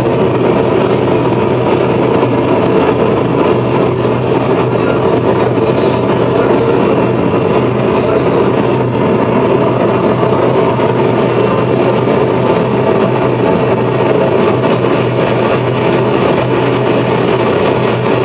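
Noise music performed live on electronics: a loud, steady wall of dense, distorted noise with a low hum running underneath and no beat or melody.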